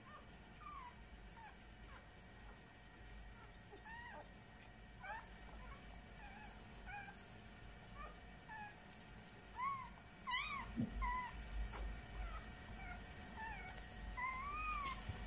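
Newborn Samoyed puppies squeaking and whimpering: many short, high cries, each rising and falling, coming more often and a little louder in the second half.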